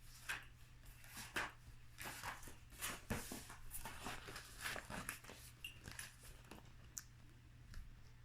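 Faint rustling and soft clicks of a picture book being handled and its pages turned, with a low steady hum underneath.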